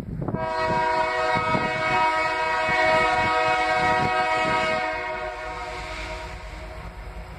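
A CSX locomotive's air horn sounds one long blast, a chord of several steady notes, that fades out about five seconds in. The train's rumble is heard as the locomotive passes close by and carries on after the horn stops.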